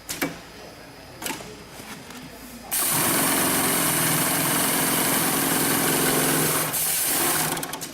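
Industrial FIBC bulk-bag sewing machine (model 80700C1H) starting suddenly about three seconds in, running fast and steady for about five seconds, then stopping near the end. A few sharp clicks come before it starts.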